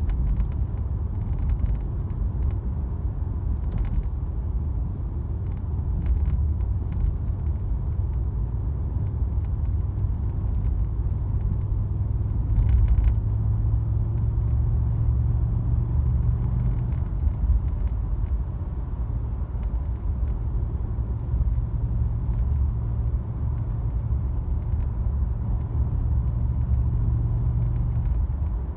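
Cabin noise of a Mercedes-AMG C63 S (W205) on the move: steady low road and engine rumble with a droning twin-turbo V8 note. Occasional faint light clicks and rattles come through, from the dashboard screen rattling.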